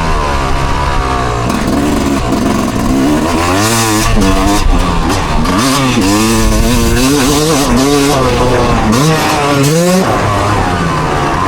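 Motorcycle engine revving hard, its pitch rising and falling over and over as the throttle is worked.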